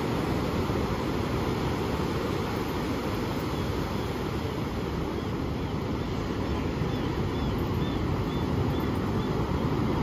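Ocean surf breaking on a sandy beach: a steady rush of waves, heaviest in the low end. Near the end, a faint run of short high chirps sounds over it.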